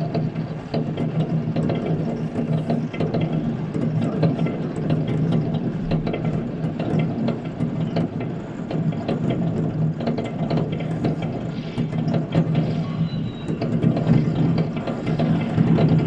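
Firecrackers and fireworks going off all over a city: an unbroken crackle of overlapping pops and bangs over a steady low hum.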